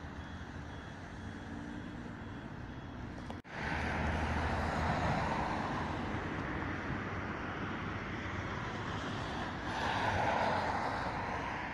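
Road traffic noise: cars passing on a street, one going by loudest about ten seconds in. Before a sudden break about three and a half seconds in, a quieter steady outdoor hum.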